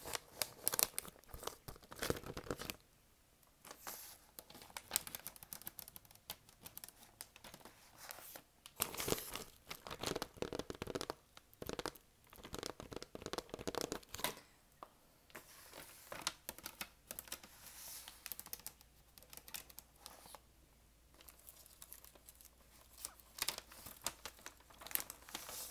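A vinyl record's white paper inner sleeve crinkling and rustling as it is handled and rubbed, with light scratches and taps of long acrylic nails on the paper, coming in irregular spells with short pauses.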